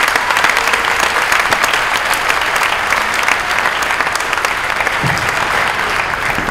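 A large crowd applauding steadily, many hands clapping at once, welcoming a speaker to the podium.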